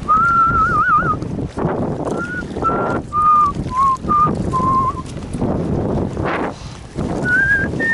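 A person whistling a tune: a string of short clear notes that step up and down in pitch, the first one wavering, rising higher near the end. Wind buffets the microphone underneath.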